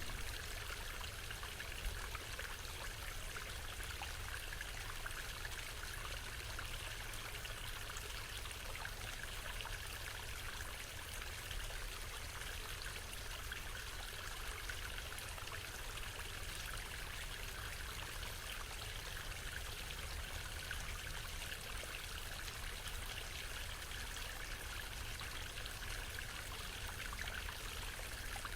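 Waterfall running steadily: an even rush of falling water.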